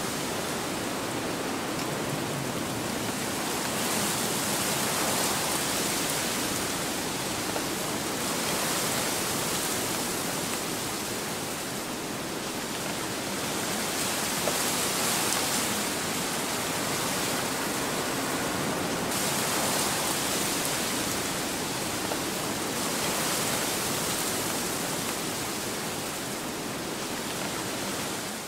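A steady rushing noise, like a wind or rain sound effect, that swells and eases every few seconds.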